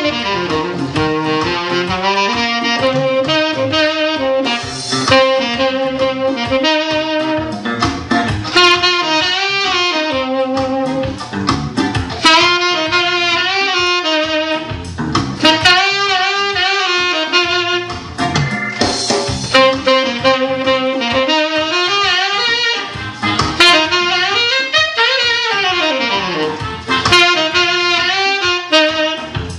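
Saxophone playing a jazz melody with vibrato and pitch bends over a backing track with a steady beat.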